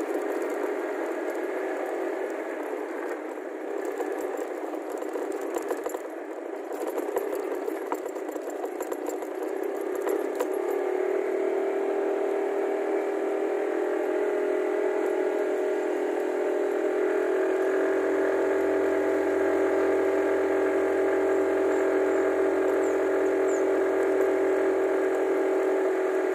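Motorcycle engine of a tricycle running steadily on the move; its note rises and grows louder about ten seconds in, then holds steady.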